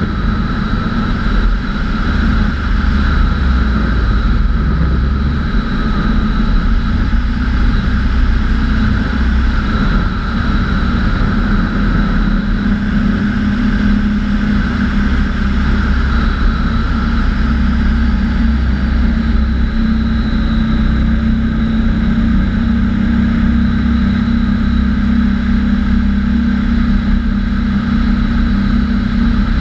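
Bautek Skycruiser microlight trike's pusher engine and propeller running steadily in cruising flight, a constant drone with a thin high whine over it. Wind rushes over the wing-mounted microphone.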